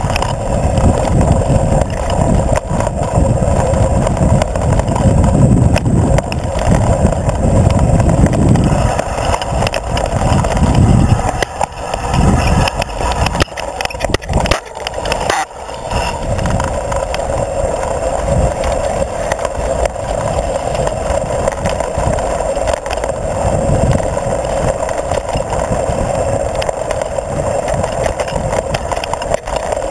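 Mountain bike rolling fast down a rocky dirt singletrack, heard from a camera mounted on the bike: knobby tyre noise, a constant rattle from the bike over stones, and a heavy low rumble. The rumble eases for a few seconds about halfway through, then comes back.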